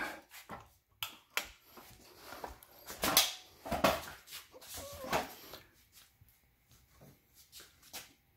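Electric kick scooter's folding stem being raised and its handlebars handled: a series of sharp clicks and knocks, the loudest about three seconds in, with a brief high whine around five seconds in.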